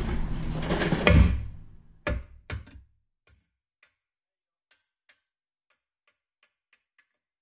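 A heavier knock about a second in, then about a dozen light, sharp metal taps at irregular intervals: a hammer tapping a new front lower control arm on a 2007 Hyundai Santa Fe to nudge it into line with its mounting bolt hole.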